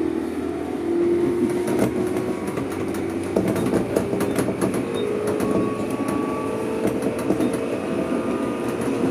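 Electric local train running on rails, heard from inside the carriage: a steady rumble with a motor whine and repeated wheel clicks over the rail joints.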